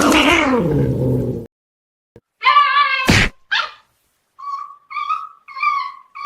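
A pet animal's high-pitched calls: a falling whine at the start, then a short call with two sharp clicks about halfway, then four short calls in quick succession near the end.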